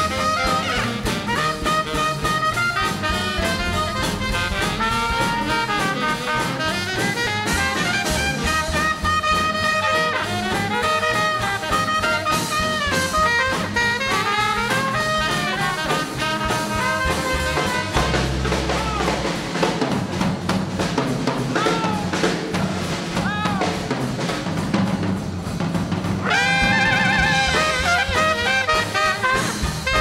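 Live small swing band playing hot jazz: trumpet leading over saxophone, upright bass and drum kit. About 26 seconds in, the horns move to long held, wavering notes.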